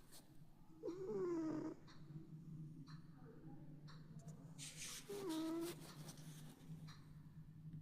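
A sleeping cat snoring twice, about four seconds apart, each snore a short pitched sound that dips in pitch. A faint steady low hum runs underneath.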